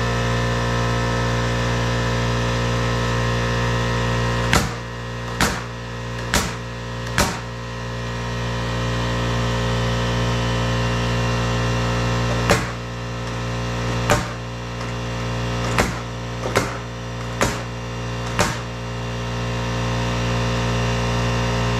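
An engine running steadily at an even pitch. About ten sharp knocks come over it, several in the first half and a quicker run later on.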